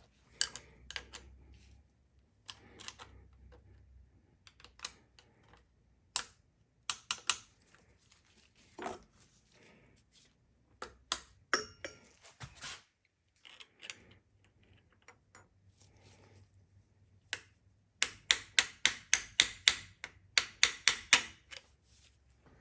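Sharp metallic clicks and knocks from hand tools loosening a connecting rod cap on a Chevy 350 V8, with two quick runs of evenly spaced loud clicks, about six a second, near the end.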